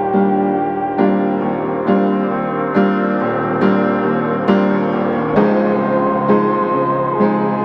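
Background music: a piano or electric piano playing sustained chords with a slow, steady beat and one chord change partway through.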